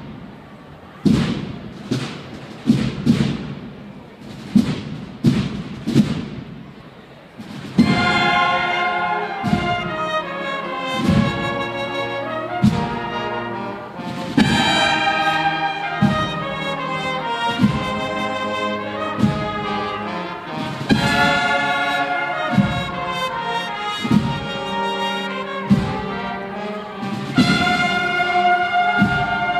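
A Spanish Holy Week bugle-and-drum band playing a march. The drums play alone at first, and about eight seconds in the bugles come in together with sustained chords over the drumbeat.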